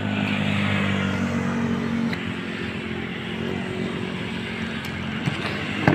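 A steady low motor hum, a little fainter after about two seconds, with a few short knocks.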